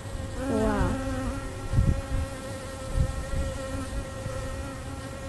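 Yellow jackets buzzing steadily around their ground nest close to the microphone, with a couple of low thumps about two and three seconds in.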